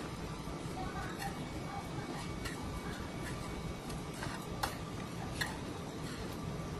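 Hot oil in a deep fryer sizzling steadily, with a few scattered sharp pops.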